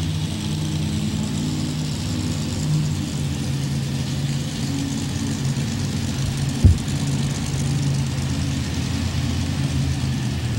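Mini rod pulling tractor's engine idling steadily as it rolls into position, with one sharp thump about two-thirds of the way through.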